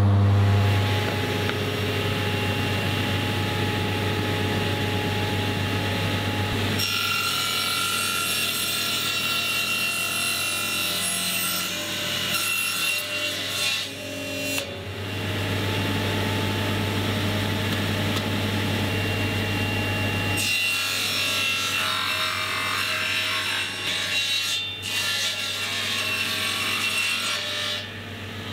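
Table saw running and crosscutting the end of an oak board square. The steady motor hum is joined by the loud hiss of the blade in the wood in two cuts of several seconds each, about seven and twenty seconds in, and the saw spins freely between them.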